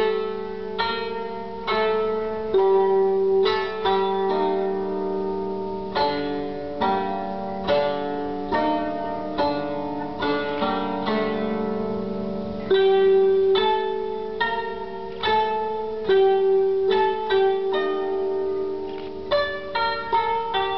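Japanese traditional music played on a plucked string instrument: a slow melody of single plucked notes and short quick runs, each ringing and fading, over a steady low held tone.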